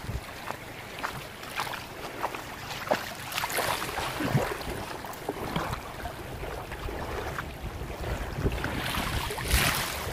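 Shallow sea water lapping and splashing around the wader, with wind buffeting the microphone, irregular small splashes and clicks throughout, and a louder gust or splash near the end.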